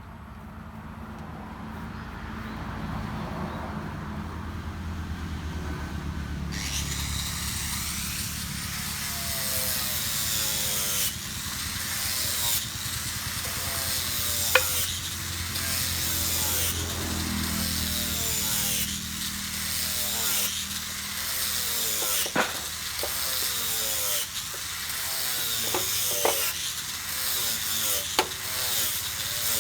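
Power tool cutting wood: a low motor hum, then from about six seconds in a steady hiss of cutting with repeating strokes and a few sharp knocks.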